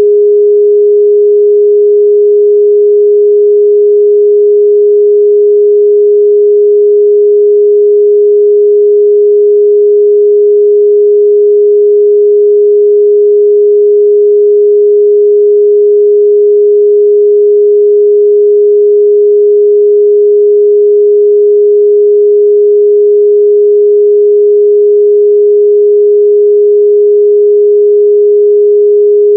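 A steady, loud 414 Hz sine-wave test tone, a single pure pitch held without change.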